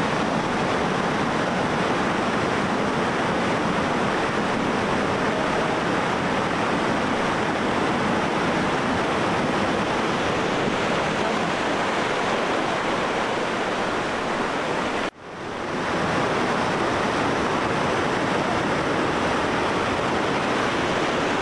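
Whitewater river rapids rushing over rocks in a loud, even noise of water. About fifteen seconds in it breaks off for a moment and comes back.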